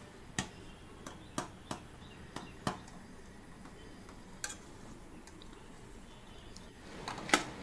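Perforated stainless-steel spoon knocking and scraping against a stainless-steel pan as cooked goat blood fry is chopped and stirred into small crumbles: scattered sharp clicks, the loudest near the end.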